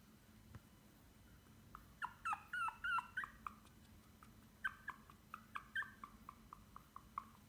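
Pomeranian puppy whimpering in high whines: a quick string of calls about two seconds in, then a run of short yips that grow shorter and fainter toward the end.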